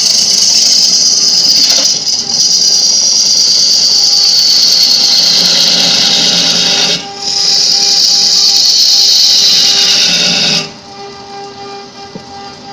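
Wood lathe turning a wooden spindle, a hand-held turning tool cutting it with a loud steady hiss of shavings over the lathe's hum. The cutting breaks off briefly twice and stops near the end, leaving only the lathe's quieter steady hum.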